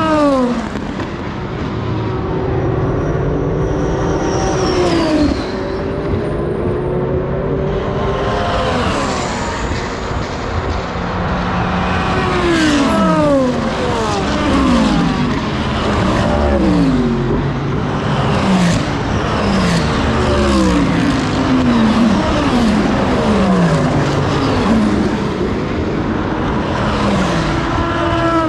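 IMSA prototype and GT race cars passing one after another at full speed, engines loud and continuous, each pitch falling as the car goes by and shifts down for the braking zone. In the second half the falling pitch drops come about once a second.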